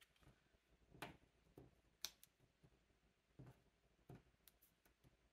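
Near silence with a few faint ticks and light paper handling as small paper stickers are peeled and pressed onto a card with foam adhesive squares.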